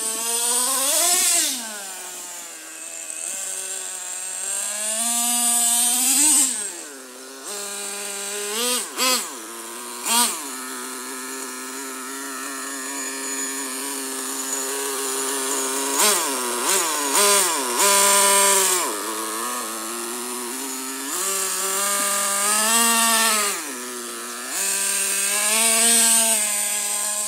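Traxxas T-Maxx's TRX 3.3 nitro two-stroke glow engine idling and revving again and again as the RC truck accelerates and slows on grass. Its pitch climbs and falls with each burst of throttle, some long runs and some quick sharp blips, dropping back to a steady idle in between.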